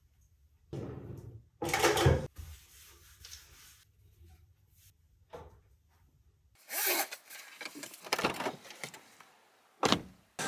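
Scattered small handling noises: rubbing, rustling and knocks. The loudest is a short clatter about two seconds in, and there is a sharp knock near the end.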